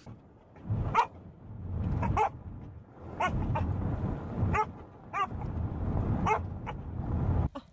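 A dog giving a string of about nine short, high yipping barks while it watches the windshield wipers sweep. The low, steady rumble of the car's road noise runs under the barks.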